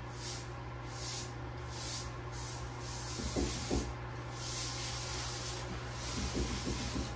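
Cloth rag rubbing over a freshly soldered copper pipe joint in repeated wiping strokes, with a couple of light knocks about three and a half seconds in.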